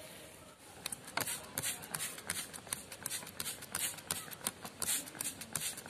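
Hand trigger spray bottle misting water onto freshly sown soil in a pot: a rapid run of short hissing squirts, roughly three to four a second, starting about a second in.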